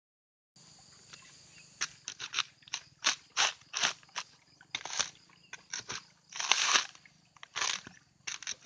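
Coconut husks being pried and torn off on a husking spike: a run of crunching, ripping rasps of fibre, mostly short, with a longer, louder tear about two-thirds of the way through.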